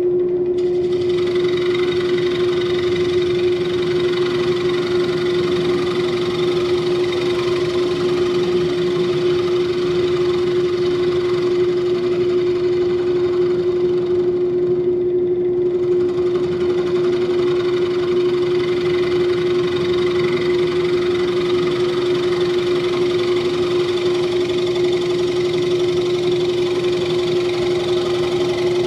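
Wood lathe running with a steady motor hum while a gouge cuts the inside of a spinning dry hardwood bowl, a continuous hissing, scraping cut that starts about half a second in. The cutting eases off briefly about halfway through, then carries on.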